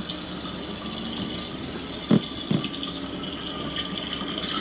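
Water from a hose pouring steadily into a camper van's fresh-water tank through its open fill port, a gentle gravity-fed flow with weak pressure. Two dull knocks sound about two seconds in.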